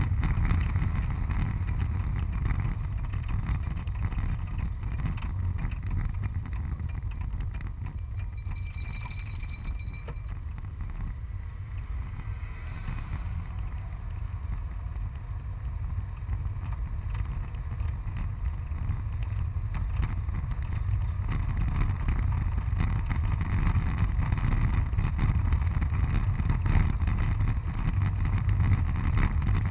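Engine and road noise inside a moving van's cabin: a steady low rumble that softens for a few seconds past the middle and grows louder again near the end.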